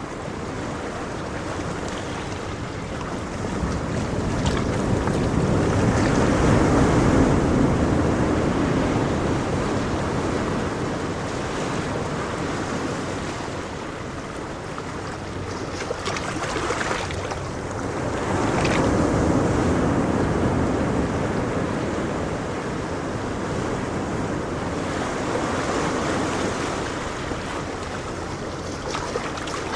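Ocean waves breaking on the shore in a continuous rushing wash that swells and recedes, with louder surges about a quarter of the way in and again past the middle.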